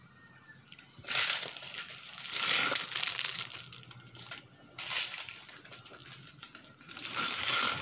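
Plastic instant-noodle packets crinkling in several bursts of a second or two as they are handled and the noodle blocks are put into a pot of water.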